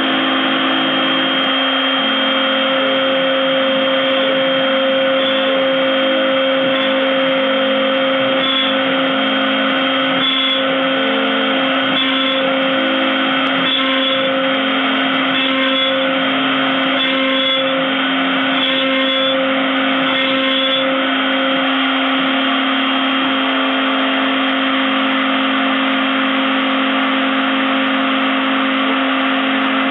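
CNC router spindle running steadily with a high whine while a small end mill cuts the wooden workpiece turning on the rotary axis.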